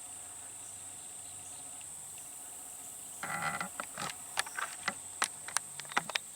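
Steady high-pitched chirring of crickets and other insects. About halfway through, a quick run of sharp clicks and knocks starts and lasts about three seconds.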